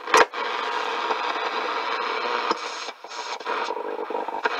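Static and hiss from a National communications receiver's speaker while it is tuned across the shortwave bands, with no station voice coming through. A sharp click comes just after the start, and the hiss dips briefly about three seconds in.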